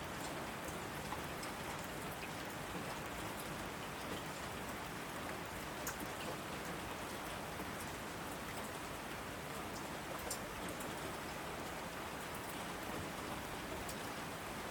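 Heavy rain falling steadily on asphalt: an even hiss with scattered sharp drop splats.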